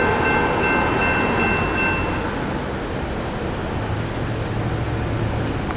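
Railroad crossing's General Signals Type 2 electronic bell ringing as the gate arms rise, cutting off about two seconds in when the crossing deactivates; a steady rumble of passing vehicles runs underneath.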